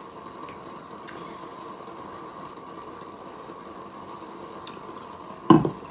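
Steady low room hum with a faint click about a second in, then a single short thump near the end.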